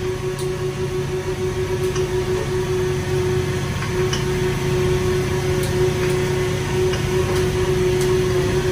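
Steady mechanical hum of a fishing boat's engine and machinery: a low drone with one held tone, plus a few faint clicks.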